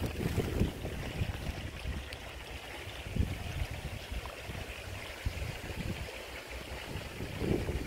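Water sloshing and trickling around a wet unhooking mat as it is dipped into the pond edge to release a fish, with a few low bumps of handling near the start, about three seconds in and near the end.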